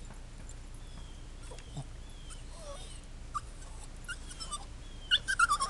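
A dog whining: a few faint short whimpers, then a quick run of loud, high-pitched whines near the end.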